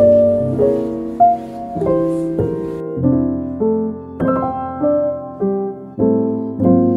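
Background piano music: soft chords and melody notes struck and left to ring.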